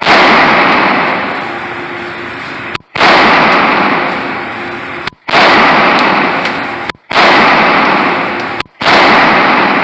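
Five shots from a Walther PPQ semi-automatic pistol, fired slowly at roughly two-second intervals, each echoing and dying away in the enclosed indoor range.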